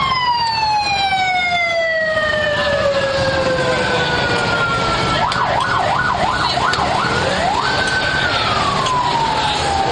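A siren with a steady tone and overtones slides slowly down in pitch for about five seconds. It then breaks into a fast up-and-down warble for about two seconds, climbs back to its high note and begins sliding down again, over steady street noise.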